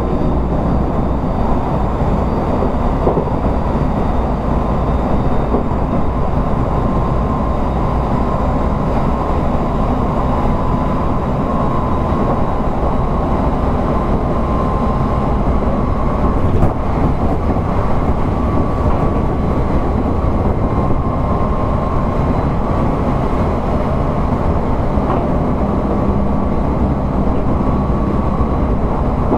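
Odakyu 1000 series electric train running at a steady speed, heard from inside car DeHa 1311: a dense, even rumble with a steady high whine over it. There is one brief louder knock about halfway through.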